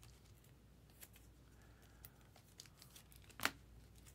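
Faint handling of trading cards and a clear plastic card holder: a few light clicks and rustles, with a sharper tap about three and a half seconds in.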